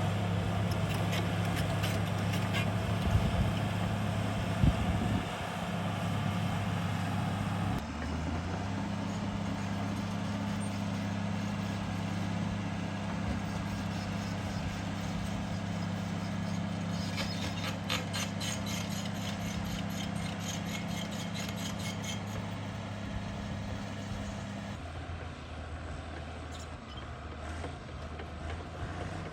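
Heavy diesel engine of earth-moving equipment running steadily, its pitch shifting about a third of the way in and dropping lower near the end, with a run of rapid clicking in the middle.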